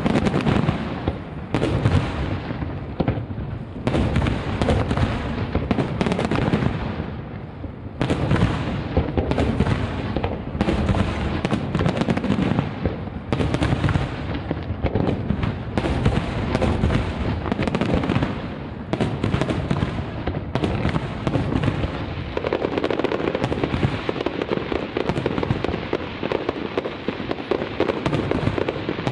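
Fireworks display: shells bursting in rapid succession, a boom about every second, with crackling from the bursts filling the gaps between them.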